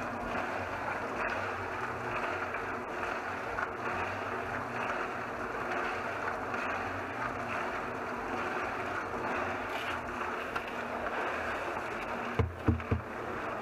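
Homemade cement mixer, a 55-gallon steel drum turned by an electric motor through a belt and pulley, running steadily with a motor hum. Near the end come three heavy thumps close together as a bucket is emptied into the turning drum.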